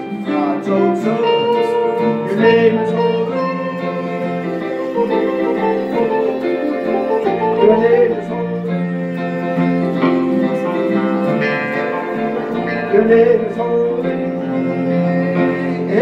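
Live worship music: an electric guitar playing over steady held keyboard chords.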